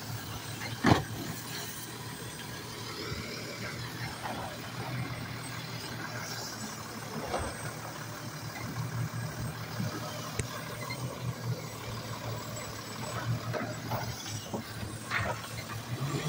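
Automated side-loader garbage truck's diesel engine running steadily while its hydraulic arm lifts a trash cart and dumps it into the hopper. A sharp clank about a second in, then several lighter clunks as the cart is handled.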